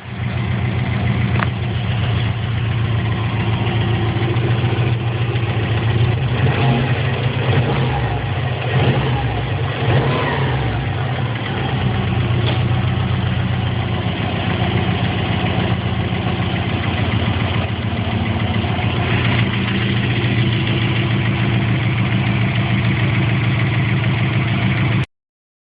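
Subaru Impreza's replacement flat-four boxer engine running with a rapid knock in time with the engine, typical of bottom-end knocking; the uploader places it near the left bank's rear piston. The engine speed rises and falls once about ten seconds in.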